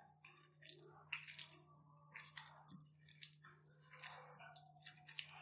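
Soaked tamarind squeezed by hand in water in a glass bowl, mashed into pulp as the seeds are worked loose: faint, short, irregular wet squelches and squishes.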